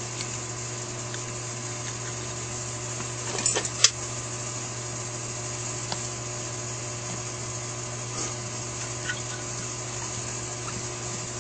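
A few small metal clicks and taps as a small screw is driven into a little cover on a Holley 4000 carburetor, the sharpest about four seconds in, then a few faint ticks. A steady low hum runs underneath.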